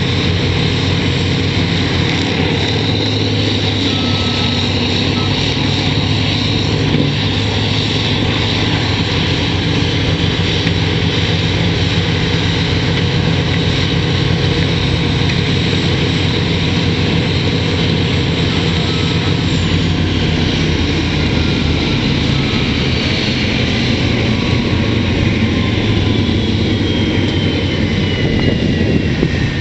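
Morbark horizontal grinder running under load, its diesel engine and cutter head grinding a load of drywall in a loud, steady machine din. Faint falling whines come in over the second half.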